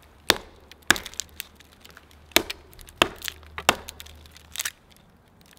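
Thick ponderosa pine bark being hacked and pried off the trunk with a hatchet: a series of sharp wooden cracks and snaps, about six main ones at uneven intervals, with smaller crackles between them.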